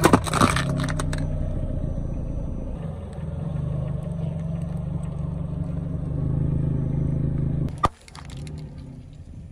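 A car tyre rolls over an aluminium drink can, crunching it flat in a quick run of crackles at the start, over the low steady rumble of the car's engine. Near the end a single sharp bang is followed by brief crackling as the tyre crushes another object.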